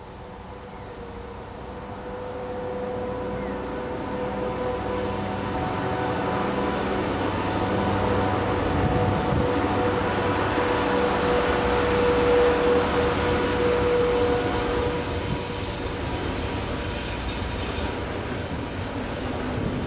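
Diesel locomotives hauling a freight train run steadily, growing louder for about twelve seconds and then easing off a little.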